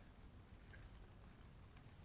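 Near silence: faint outdoor ambience with a steady low rumble, a few soft ticks and one short faint high note a little past a third of the way in.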